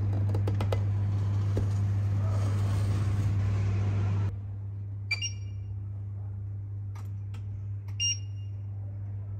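Induction cooktop's touch-control panel beeping as buttons are pressed: two short electronic beeps, about five and eight seconds in. Before them a steady low hum with hiss runs and then cuts off suddenly about four seconds in.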